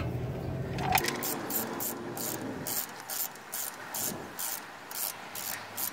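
Ratchet wrench clicking in quick, even strokes, about four to five clicks a second starting about a second in, as a 17 mm bolt on a front brake caliper is run in tight.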